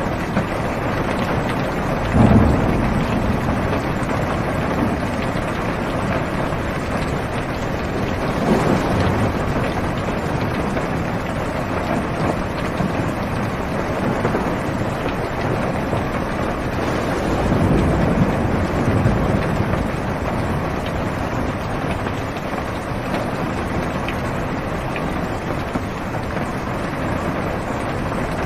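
Heavy rain falling on a car's roof and windows, heard from inside the cabin, as a steady muffled hiss. Low rolls of thunder swell up about two seconds in, around nine seconds, and again around eighteen seconds.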